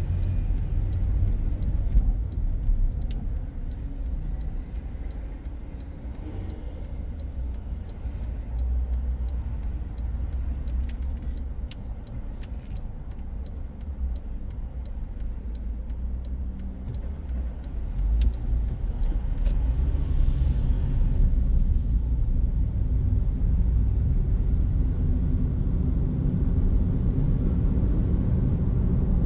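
A car driving, heard from inside the cabin: a steady low road and engine rumble with a few faint clicks, which grows louder about 18 seconds in.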